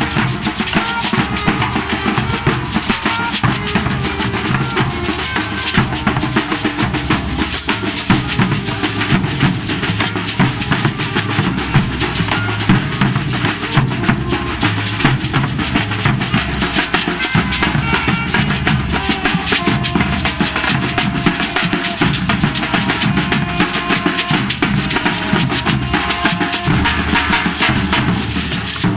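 A street band playing while marching: snare drums beat a steady, driving rhythm over a bass drum, with a saxophone.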